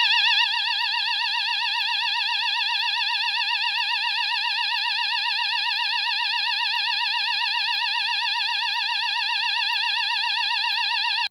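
AE&T T105N electronic fire alarm sounder playing its tone number 28: a loud, shrill electronic tone warbling rapidly up and down, held steady, then cutting off abruptly.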